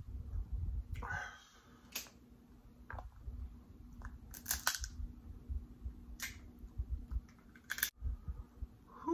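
Close-miked mukbang eating: sharp wet mouth clicks and lip smacks every second or so while chewing, over low thumps from handling the food.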